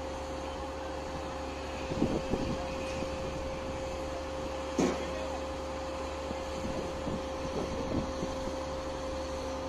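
Steady drone of construction machinery on a bridge site, with a constant whine and a low hum. A few brief knocks or calls sound about two seconds in and again about five seconds in.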